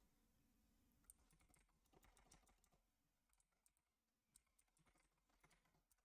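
Faint computer keyboard keystrokes, a few scattered taps at a time over near silence.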